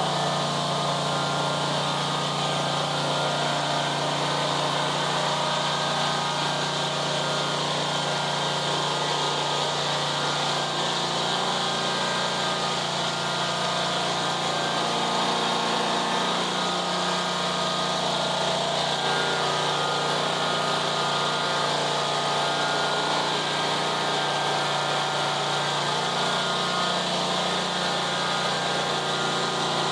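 Kawasaki 22 HP V-twin engine of a zero-turn mower running steadily after being started.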